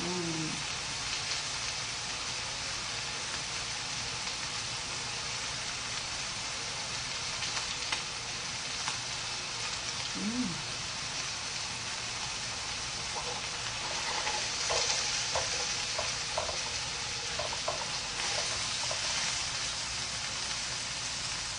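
Slices of pork jowl sizzling steadily as they fry in a pan, the sizzle swelling a little past the middle, with a few light clicks in the second half.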